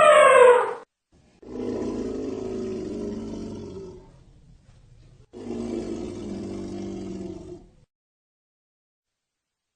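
Elephant trumpeting, its pitch falling as the call ends just under a second in, followed by two lower, quieter calls of about two and a half seconds each.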